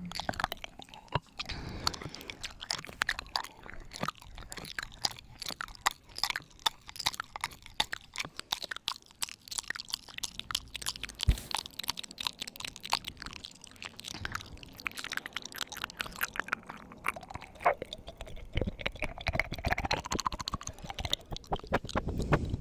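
Ear-eating ASMR mouth sounds close on the microphone: a dense, irregular run of lip smacks, tongue clicks and wet mouth noises.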